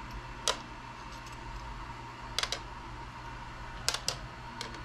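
Small stainless steel bed clips set down one by one on a 3D printer's bed: about four sharp metallic clicks, some in quick pairs, spaced a second or two apart, over a faint steady hum.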